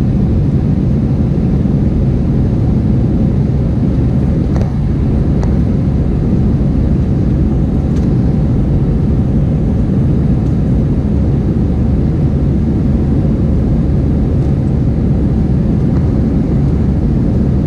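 Steady low rumble of cabin noise inside an Airbus A319 airliner in flight, engine and airflow noise heard from a window seat over the wing, with a faint steady hum.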